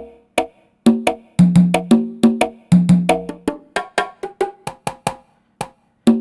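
Roland SPD-20 digital percussion pad struck with drumsticks in a fast rhythmic pattern, several hits a second. It plays its sampled percussion sounds: short, pitched, drum-like tones, each with a sharp stick click, and a brief pause near the end.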